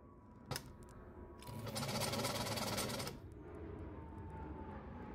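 Vintage sewing machine, converted to run from an electric motor through its handwheel, clicks once and then runs fast for about a second and a half, its needle mechanism clattering, before falling back to a quieter hum.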